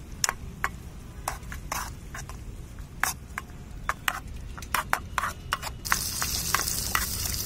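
Metal spoon stirring in a small aluminium kadai of frying onion, tomato and turmeric, knocking against the pan in irregular clinks. Near the end a sizzling hiss of frying comes in and keeps on.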